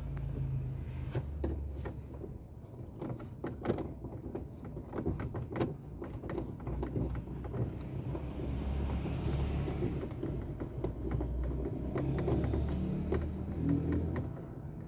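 Phillips screwdriver backing out the screws that hold a car's factory radio in the dashboard: scattered small clicks and scrapes of metal and plastic over a low steady hum.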